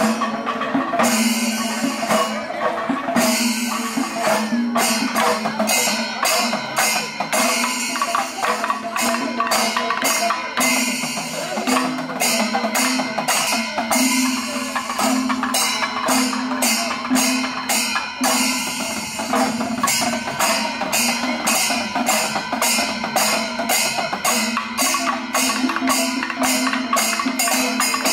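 Kerala temple percussion ensemble playing: chenda drums and elathalam hand cymbals beat out a steady, even rhythm of sharp strokes, with a held tone sounding under it.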